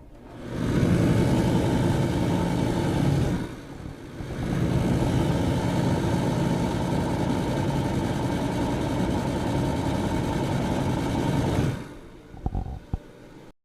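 Electric fan running with a steady whir and motor hum. It dips briefly about three and a half seconds in and picks up again, then drops away near the end, followed by a few short clicks.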